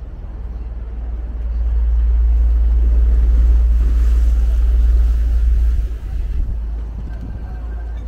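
Wind buffeting the microphone: a loud low rumble that swells about a second and a half in and drops away around six seconds.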